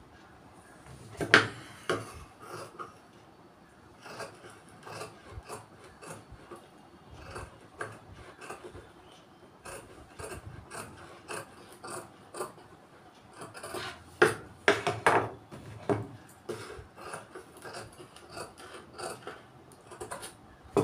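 Tailor's scissors snipping and cutting blouse fabric, with cloth rustling and sliding on the cutting table: an irregular run of snips and rubs, loudest about a second in and again in a cluster around the two-thirds mark.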